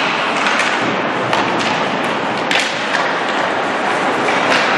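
Ice hockey play on the rink: skate blades scraping the ice and sticks and puck clacking, a handful of sharp strikes over a steady hiss, echoing in the arena.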